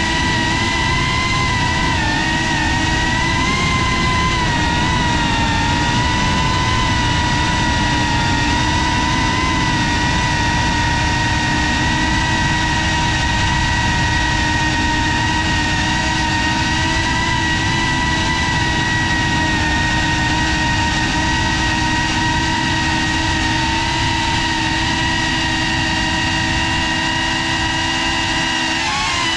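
FPV drone's motors and propellers whining at a steady high pitch over a rushing noise, with the pitch wobbling slightly and shifting briefly near the end.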